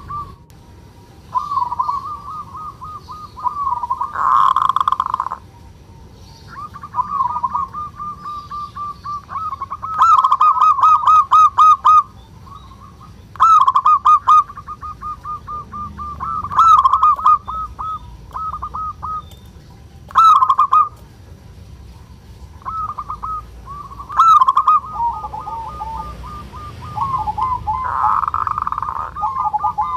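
Male zebra dove (perkutut) giving its 'kerot' call, the rolling coo of a bird in breeding condition: phrase after phrase of rapid staccato notes with short gaps between, some phrases much louder than others.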